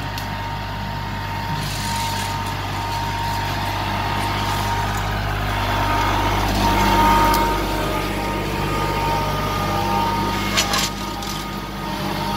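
Kubota L3901 compact tractor's diesel engine running steadily under load, with a thin steady whine above the engine note. The engine grows louder around the middle, and there are a few sharp clicks near the end.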